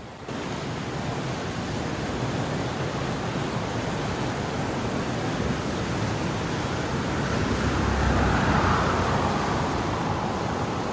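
River in major flood: fast water rushing and churning steadily, swelling a little about eight seconds in.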